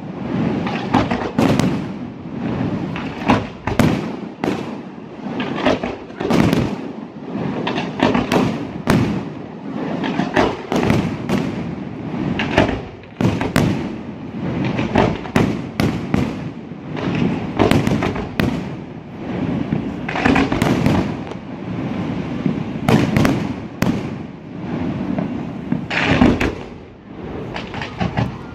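Fireworks display: aerial shells bursting in a rapid, irregular barrage of loud bangs, several a second, with no let-up.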